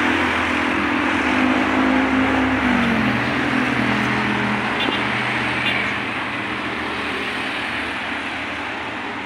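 Road and engine noise of a moving vehicle amid road traffic: a steady rush with an engine whose pitch drops about three seconds in, the noise easing off after about six seconds.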